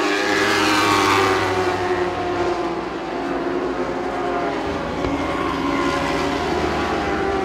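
Several lightning sprint car engines running hard as the pack races past. The loudest moment comes about a second in as cars go by close, then the mixed engine note holds steady.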